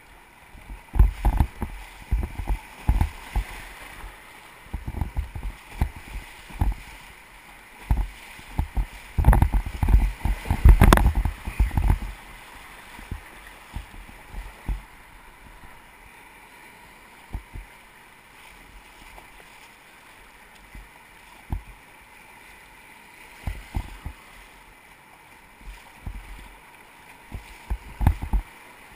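Kayak running river rapids: a steady rush of white water with irregular low thumps of waves and the paddle striking the hull, densest around ten seconds in.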